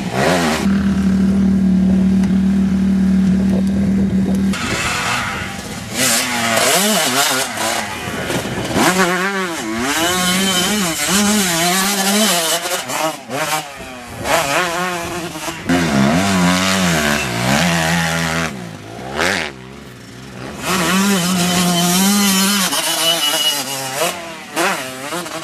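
Motocross bike engine running, holding a steady pitch for the first few seconds, then revving up and down repeatedly as it rides.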